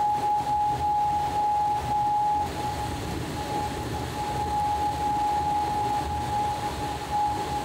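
A thick stream of liquid pouring from a tipped steel bowl into a large steaming stockpot, a steady rush of noise, over a constant high-pitched hum.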